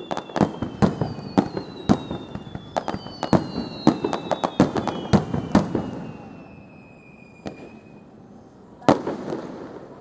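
Fireworks display: a rapid run of sharp bangs and crackling reports, with several whistles falling slowly in pitch, then a lull of about two seconds and a fresh cluster of bangs near the end.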